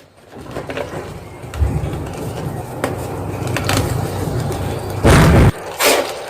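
Soft gym chalk being crunched and crushed up close: a run of crackling and small cracks, with a much louder crunch about five seconds in and a smaller one just after.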